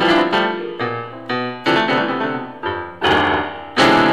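Yamaha electronic keyboard played with jumbled clusters of keys struck together, about seven times at uneven moments, with no melody or steady rhythm. The sound is irregular and without order: noise rather than music. The last and loudest cluster, near the end, is held and rings on.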